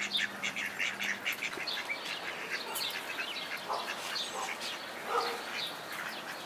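Ducks being fed, giving a few soft quacks in the second half, over a steady stream of quick, high bird chirps.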